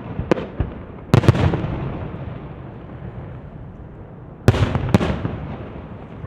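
Aerial fireworks shells bursting with sharp bangs. A few single bangs come early, then a cluster about a second in and another about four and a half seconds in, each cluster trailing off in a long, fading rumble.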